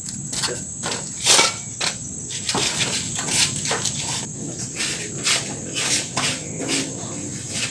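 Irregular clicks and knocks of metal parts handled on a bare Mitsubishi 4D33 engine block during assembly, over a steady, high chirping of crickets.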